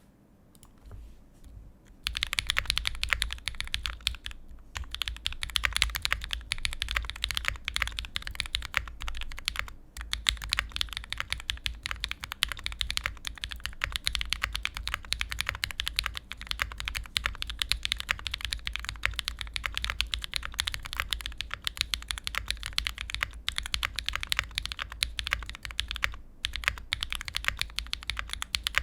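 Continuous fast typing on a custom mechanical keyboard, starting about two seconds in, with brief pauses a few times. The board has Raed switches lubed with 204g0 and fitted with Durock films, an FR4 plate in gasket mount, case foam and Zeal stabilisers.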